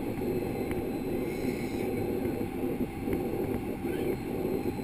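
Steady roar of a jet airliner's turbofan engines and rushing air, heard inside the passenger cabin during the low final approach to landing.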